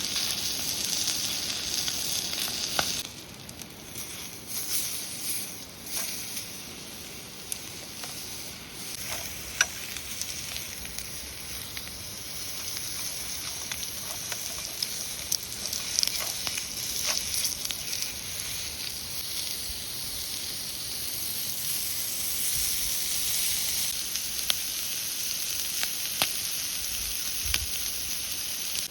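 Food sizzling in a hot pan, a steady frying hiss with scattered small pops and ticks; it drops in level about three seconds in.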